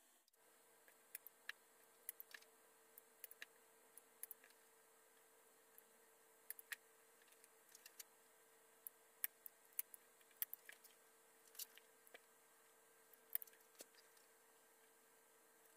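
Near silence: a faint steady hum with scattered soft clicks and ticks, a few a second, at irregular intervals.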